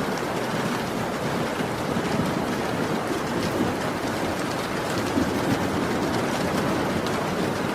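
Heavy rain falling steadily: a dense, even wash of rain with faint scattered drop ticks.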